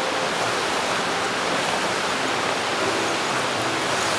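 Steady, even rushing noise like running water.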